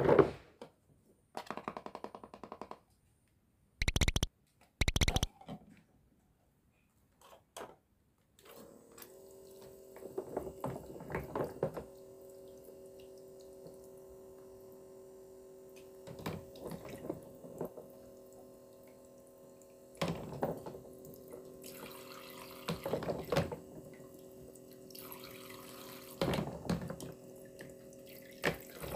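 Battery-powered toy kitchen sink whose small pump switches on about a third of the way in and runs with a steady hum, water trickling from the toy faucet into the plastic basin. Plastic toy fruit and vegetable pieces clack against each other and the sink throughout, with two short loud noises before the pump starts.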